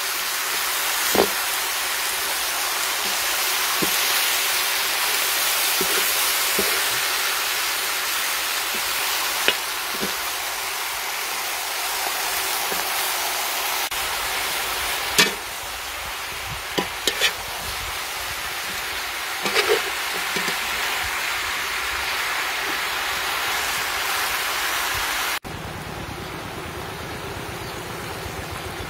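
Chicken pieces sizzling as they stir-fry in a large wok, with the scrape and clink of a metal spatula and ladle turning them every few seconds. Near the end the sizzle drops suddenly to a quieter hiss.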